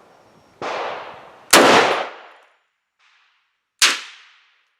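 Rifle shots from an IWI Ace Galil in .308: three sharp reports about a second and then about two seconds apart, the middle one the loudest, each trailing off in echo.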